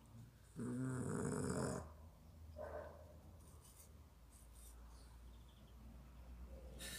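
Sleeping puppy snoring: one loud, fluttering snore about half a second in, lasting about a second, then a short fainter one and quiet breathing.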